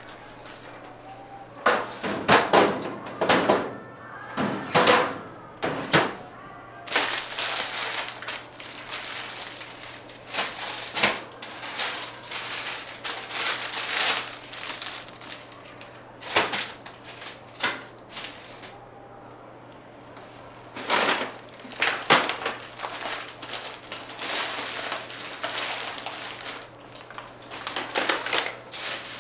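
Irregular clatter and knocks of small items being handled and set down, with longer stretches of rustling and wiping, from cleaning and sorting supplies.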